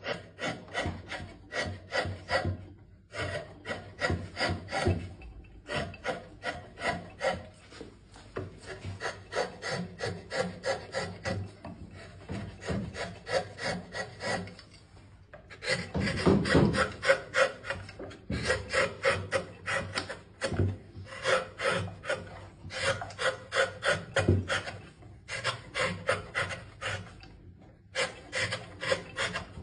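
Woodcarving tool scraping and rasping across wood in quick repeated strokes, about four a second, in runs of a few seconds broken by short pauses.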